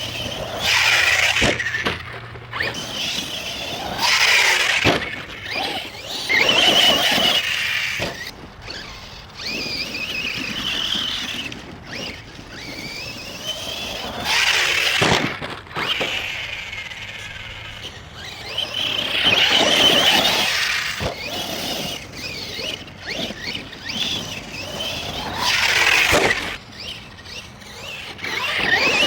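Arrma Outcast 1/8 stunt truck's electric motor whining in repeated throttle bursts, its pitch rising and falling as the truck speeds up and slows, with quieter gaps between runs.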